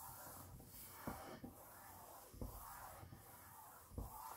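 Faint rustle of a hand smoothing and pressing a strip of paper down onto a sheet of card, with a few soft knocks.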